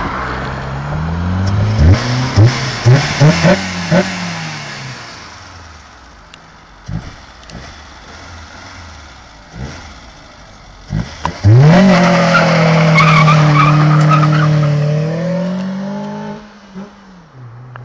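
Small Kia Picanto petrol engine revved in a quick series of throttle blips, with sharp loud pops at each blip. It then pulls away hard with a sustained, loud engine note that changes pitch as it goes and fades toward the end.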